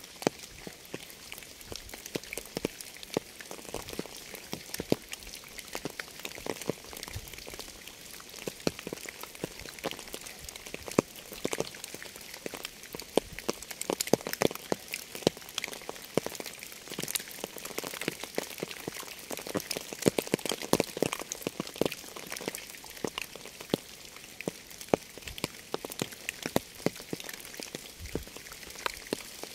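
Rain falling: a steady hiss with many separate drops striking in quick, irregular succession.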